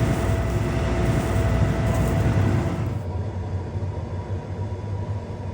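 Heavy vehicle engine running steadily. A loud, hissy stretch with steady tones changes abruptly about halfway through to a quieter, lower, steady hum.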